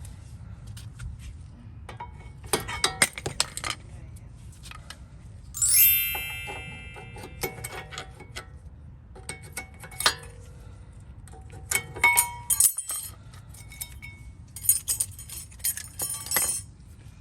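Steel brake pads and a pry bar clinking and knocking against the caliper bracket as the old pads are pried out, in several clusters of quick sharp taps, with one ringing metal clang about six seconds in that dies away over about half a second.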